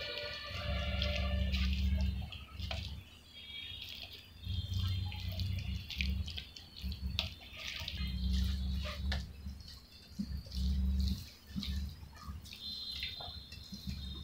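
Wet squelching and short smacking clicks of curd rice being squeezed and mixed by hand on a steel plate and eaten.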